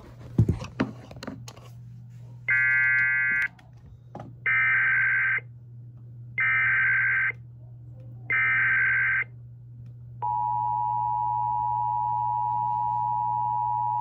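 Emergency Alert System tones: a short electronic beep, then three one-second bursts of SAME header data warbling, about a second apart, then from about ten seconds in the steady two-tone EAS attention signal.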